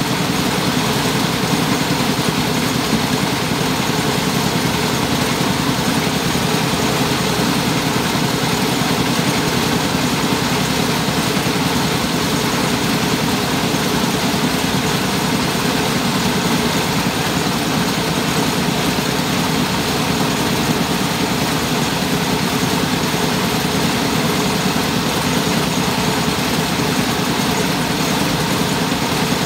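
Engine-driven mobile rice huller running steadily: its engine and the milling machinery make a loud, constant mechanical noise that does not change.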